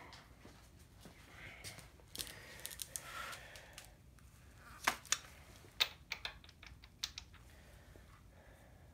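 Irregular sharp metallic clicks and clinks of hand tools, as sockets are tried one after another on bolt heads to find their size.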